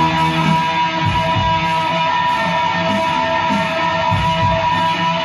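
Electric guitar music, with held notes ringing steadily above low, uneven thuds of a beat.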